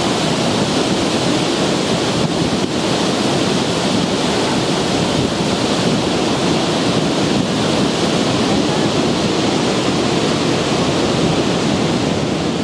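Niagara Falls: the steady, unbroken rush of a great mass of falling water.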